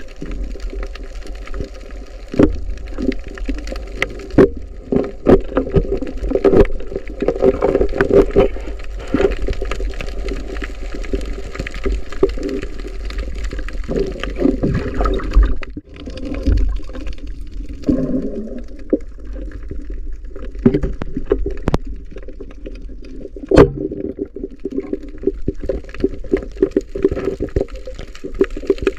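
Muffled underwater wash of moving water during a night spearfishing dive, with scattered sharp clicks and knocks throughout.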